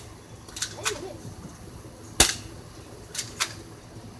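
Airsoft gun fired at cans, sharp snaps. The loudest comes about two seconds in, with pairs of fainter ticks about a second in and again near the end.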